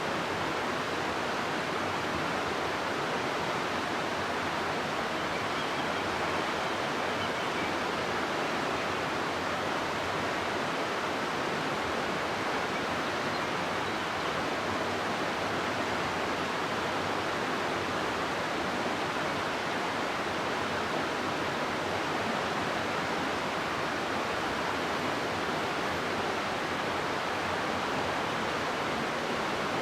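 River water rushing through a rocky gorge, a steady even roar of flowing water.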